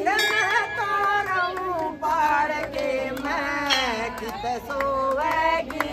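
Women's voices singing a devotional bhajan together in sustained, wavering lines, with hand claps keeping the beat.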